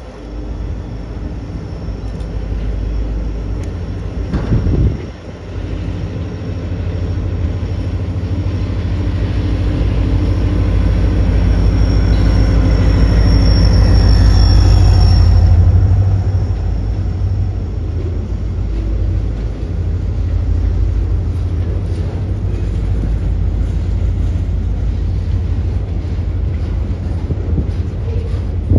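CSX diesel freight locomotive running as it approaches and passes beneath, loudest around the middle, then a steady rumble of freight cars rolling by.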